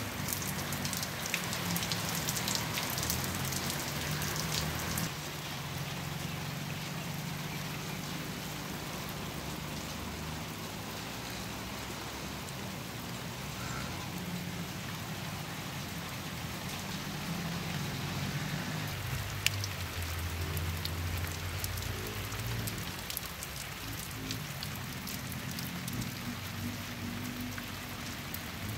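Steady rain falling on bare dirt ground and scrub, with single drops ticking close by and one sharper tick about two-thirds of the way through.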